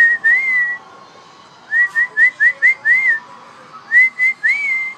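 Whistling: a clear, high single tone in short rising-and-falling notes. There is a phrase at the start, a quick run of six notes about two seconds in, and three more notes near the end.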